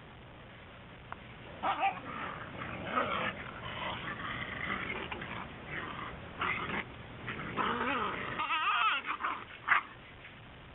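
Whippet puppies whining and yipping in short, irregular calls, with a wavering high-pitched whine near the end.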